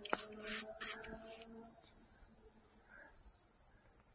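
Steady, unbroken high-pitched drone of insects in leafy woods.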